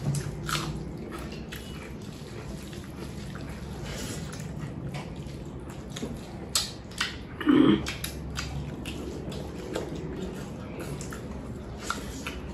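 People eating a meal of rice and dal: scattered small clicks and smacks of chewing and of food and utensils on plates, with one short louder voiced sound a little past halfway.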